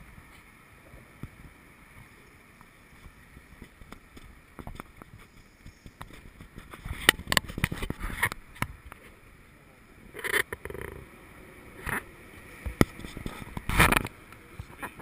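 Scattered sharp knocks and bumps over a faint steady background: a cluster of them about halfway through and a few single ones near the end.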